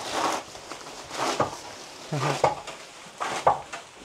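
Hand-worked fodder chopper blade cutting grass: four chopping strokes, about a second apart.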